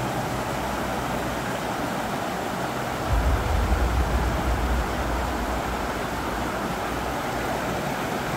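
Steady rush of flowing mountain water. A deep low rumble swells in about three seconds in and fades a couple of seconds later.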